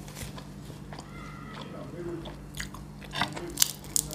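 Close-up eating sounds: soft chewing, then sharp crackles and clicks from about two and a half seconds in as a roast chicken is torn apart by hand and with a fork. A low steady hum runs underneath.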